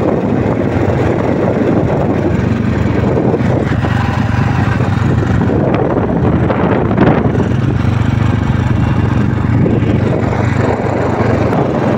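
Motorbike running at road speed, a steady low engine hum under heavy wind rush on the phone microphone.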